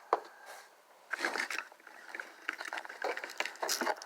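Plastic packaging crinkling and rustling in the hands as a small wrapped miniature is opened. There is one click near the start, then a run of irregular crackles from about a second in.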